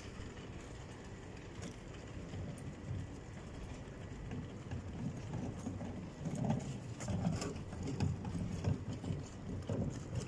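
Steady hum of city traffic with footsteps on pavement, which come through more plainly about halfway through at roughly two steps a second.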